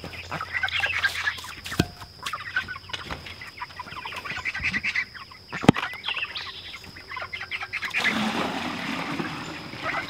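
A flock of young Cornish cross broiler chickens peeping and clucking, with two sharp knocks, the second the loudest. From about eight seconds in, the steady rush of water being poured from a bucket into their waterer.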